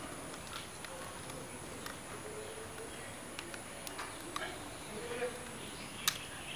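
Insects droning steadily at a high pitch, with a few faint, scattered clicks.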